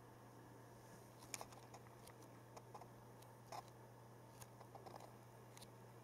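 Near silence: room tone with a steady low hum and a scattering of faint clicks and taps, the clearest about a second and a half in and again about three and a half seconds in.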